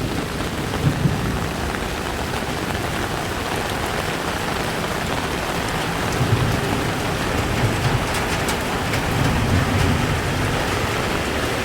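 Heavy tropical rain pouring steadily, with rolling thunder rumbling low beneath it, swelling a little past the middle.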